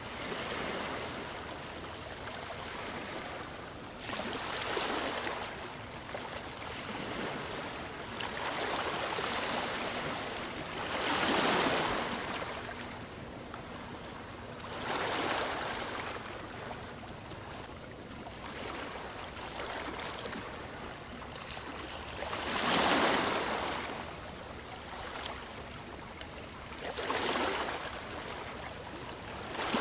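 Sea waves breaking and washing on a shore: a steady hiss of surf that swells and falls back every few seconds, with two larger waves standing out.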